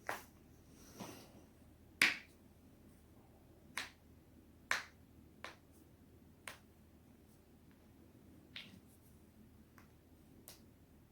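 Neck and back joints cracking: about ten sharp pops at uneven intervals, the loudest about two seconds in.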